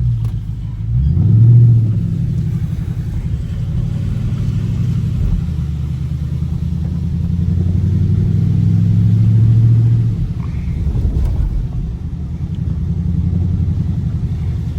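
Dodge Scat Pack's 6.4-litre HEMI V8 rumbling as the car is driven, with a short loud rev about a second and a half in and a longer pull under acceleration from about six to ten seconds before it eases off.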